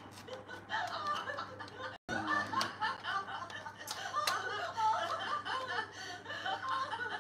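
People chuckling and laughing amid indistinct voices, with a few sharp clicks; the sound cuts out for a moment about two seconds in.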